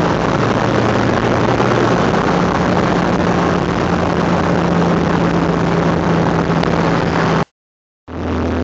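Engine and road noise inside a moving car's cabin, a steady loud drone with a low hum. It cuts off suddenly about seven and a half seconds in, and after a brief silence bass-heavy electronic music starts near the end.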